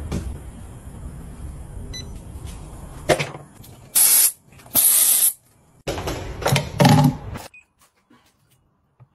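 Two short hisses from an aerosol spray can, about a second apart, sprayed into sneakers. Before them is a low, steady background noise, and after them come a second or so of knocks and handling noise.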